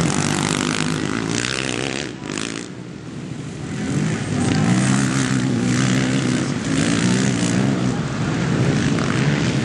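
Racing quad engines revving hard as quads pass close by, the pitch rising and falling with throttle and gear changes. The sound dips about two seconds in, then comes back loud about four seconds in as another quad passes close.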